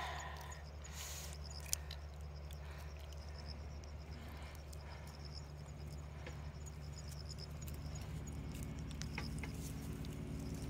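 Calico cat licking Churu lickable cat-treat paste from a squeeze tube: faint, irregular wet clicks of its tongue, with one sharper click near the two-second mark. Under them runs a low steady rumble, and a low hum joins about eight seconds in.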